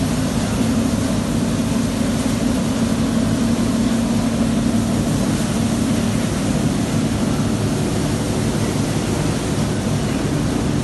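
Semi-automatic 11 kW hydraulic baler running, its hydraulic power unit giving a loud, steady hum with no distinct strokes or knocks.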